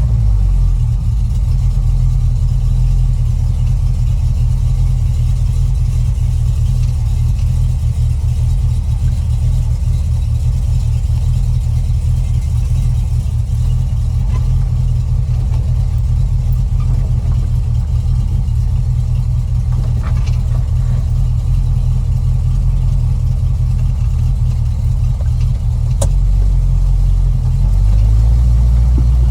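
350 small-block Chevy V8 running through glasspack mufflers, a steady low exhaust note that swells slightly near the end.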